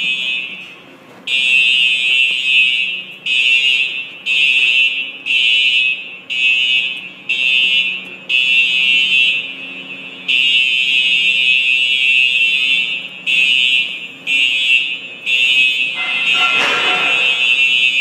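Fire alarm horn strobes sounding in alarm during a fire alarm test: loud, high-pitched horn blasts going on and off, mostly short with a few longer ones. A brief noise near the end.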